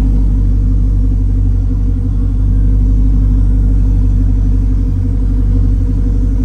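A motor vehicle's engine running steadily, a deep low rumble that holds an even pitch throughout.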